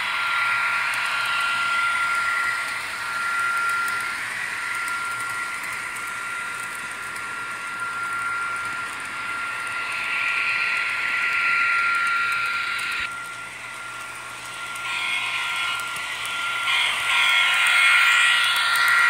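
HO scale model train running on its track: the wheels rattle and clatter along the rails over a steady high-pitched whine. The rolling sound drops suddenly about two-thirds of the way through, then grows louder as the train passes close near the end.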